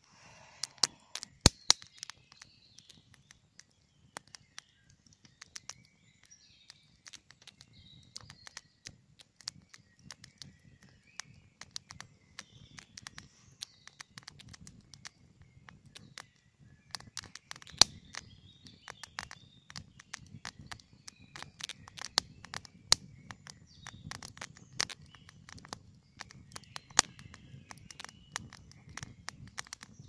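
Wood campfire crackling, with frequent sharp pops and a low rush of flames that grows stronger about halfway through. Birds sing faintly in the background.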